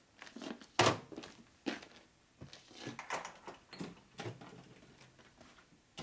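A handful of irregular sharp knocks and clatters, the loudest about a second in: tools, including a hammer, being set down and handled on a steel workbench.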